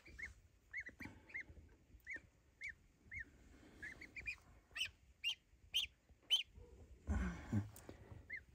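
Newly hatched goslings peeping: a string of short, high cheeps, a few a second, some higher and sharper around five to six seconds in. About seven seconds in, a brief louder scuffling noise breaks in.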